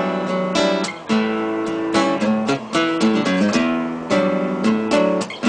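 Acoustic guitar strumming chords in an instrumental break of a song, with a steady rhythm of strokes.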